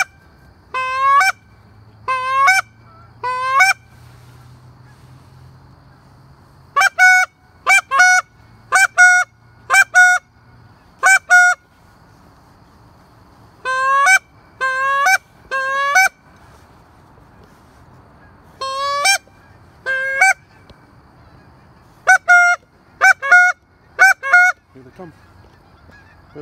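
Canada goose call blown in single honks, each a low note breaking sharply up into a higher one, in runs of two to seven about a second apart with short pauses between runs.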